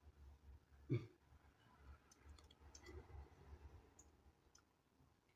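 Near silence with a few faint clicks and a soft knock about a second in, over a low hum.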